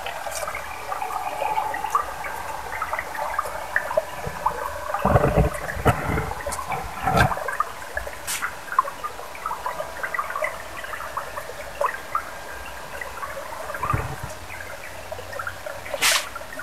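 Stream water trickling and gurgling over a pebbly bed in a steady patter of small splashes, with a few low thumps about five to seven seconds in and again near the end.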